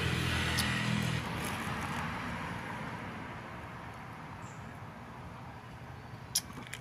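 A motor vehicle passing close by: an engine hum that drops away after about a second, then a rushing noise that fades steadily. A single sharp click near the end.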